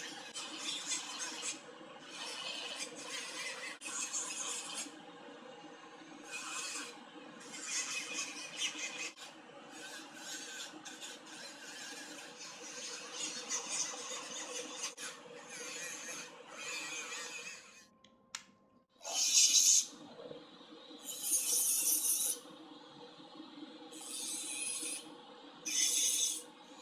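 A small rotary tool grinding a plastic splint in short repeated passes, each a rasping burst of about a second over a steady motor hum. The tool stops briefly a little past the middle, then resumes with louder passes.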